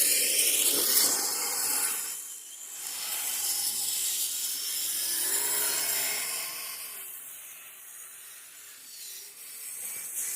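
RC crawlers' small electric motors and drivetrains running through fresh snow: a hissing, grinding churn that swells and fades as the throttle comes on and off, with a faint wavering motor whine.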